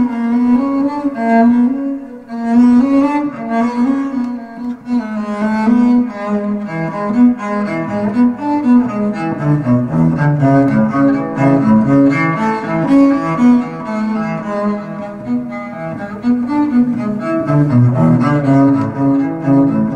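Solo cello music: a bowed cello playing a flowing line of short notes. The line moves into its lower register about eight seconds in.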